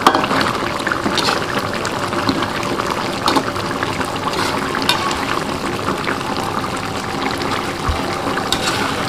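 Chicken simmering in a thin chili gravy in an aluminium wok, bubbling steadily as a metal spatula stirs and turns the pieces, with a few sharp knocks of the spatula against the pan.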